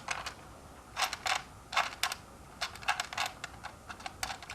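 Irregular light clicks and rattles, in small clusters, as the nut on a hoverboard's power switch button is tightened by hand into the plastic shell.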